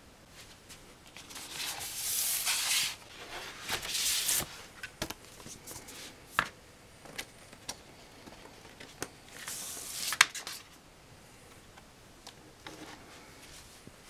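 Paper record sleeves and a cardboard gatefold album jacket being handled. Bursts of rustling and sliding are loudest about two to four seconds in and again around ten seconds, with scattered light taps and clicks between them.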